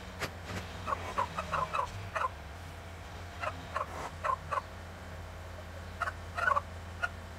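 Engine of a 1962 Volvo BM backloader running with a steady low hum. Several clusters of quick, short pitched pulses come over it.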